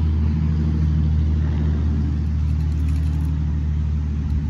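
An engine running steadily: a low, even hum that holds the same pitch throughout.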